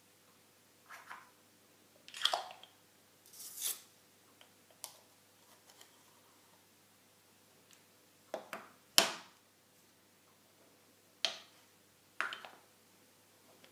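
Small walnut and boxwood boxes of a Mini Wandering Mummy magic prop being handled: scattered light wooden clicks and knocks as panels slide and lids and boxes are set down on a wooden bench, the sharpest knock about nine seconds in.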